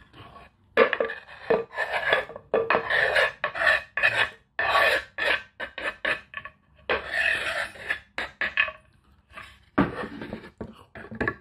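Kitchen knife and utensils scraping and clinking on a wooden cutting board and dish as fruit is cut and handled, in irregular short strokes.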